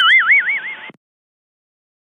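Cartoon boing sound effect: a twangy tone wobbling rapidly up and down in pitch, cut off abruptly about a second in, then silence.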